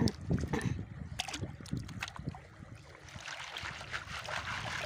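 Shallow river water splashing and sloshing around hands digging along the bottom for mussels, with a few sharp clicks and knocks in the first two seconds.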